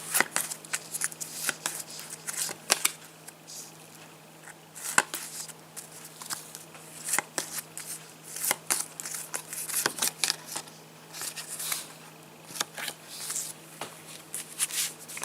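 Topps Match Attax football trading cards being handled and flicked through: an irregular run of sharp clicks and short slides of card against card.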